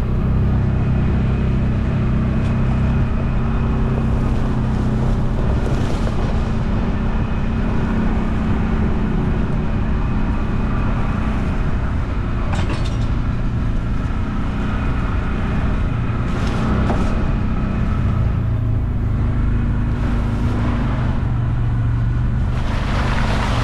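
Side-by-side UTV engine running steadily as it drives along a dirt trail, with a few short sharp clicks along the way. Near the end the tyres splash through a puddle.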